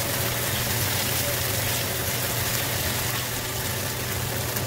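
Sliced onion and garlic sizzling steadily in hot oil in a wok on high heat, with a steady low hum underneath.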